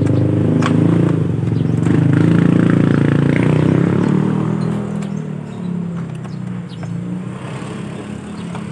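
An engine running, its pitch wavering; loudest for the first four seconds, then fading. A few light clicks and scrapes over it.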